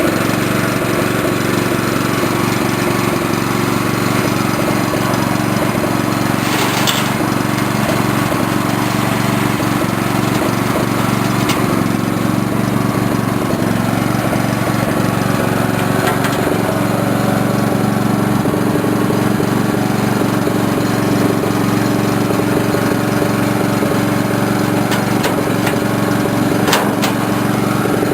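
An engine running steadily at constant speed, with a few sharp clicks or knocks over it.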